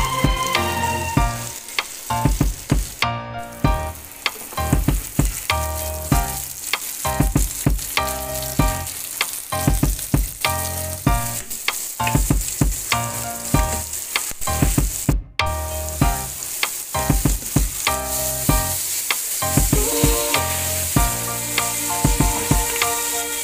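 Chicken and onion pieces sizzling in hot oil in a frying pan, with repeated clicks and scrapes of a spatula stirring them against the pan.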